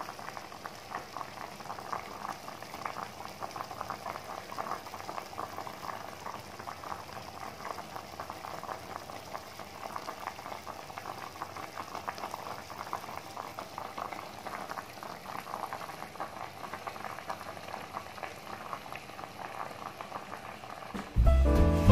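Fish and eggplant in vinegar broth boiling in a pot, a steady dense bubbling. Loud music starts about a second before the end.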